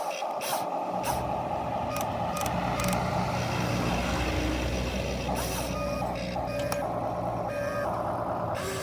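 Radio-controlled model excavator running: a buzzing motor whine that breaks off briefly now and then, with a low rumble joining about a second in.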